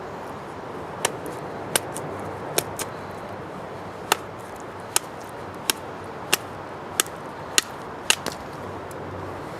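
Condor Bushcraft knife's 3 mm carbon steel Scandi-ground blade cutting wood, about ten sharp cracks at a steady pace of roughly one every 0.7 seconds.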